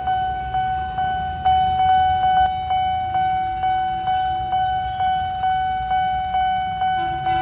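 Railway level-crossing warning bell ringing about twice a second with a steady electronic tone, signalling an approaching train with the barriers down. Motorcycles idle underneath it.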